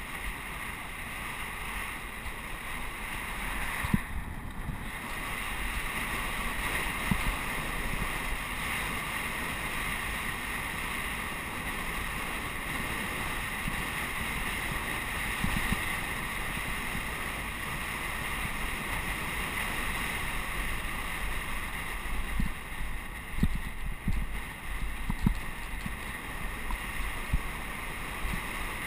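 Steady rush of wind over a bike-mounted camera's microphone as a road bike descends at speed, with short low buffeting thumps now and then, more of them about three-quarters of the way through.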